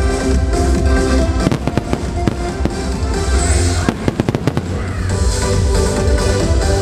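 Aerial fireworks bursting and crackling, a rapid string of sharp cracks thickest from about a second and a half in until about four seconds, over loud soundtrack music with a heavy bass.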